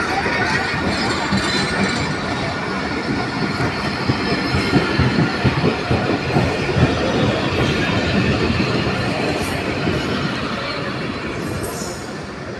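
Passenger express train rolling past on the track: a steady, loud rumble of wheels on rail with short, high wheel squeals now and then, easing slightly near the end.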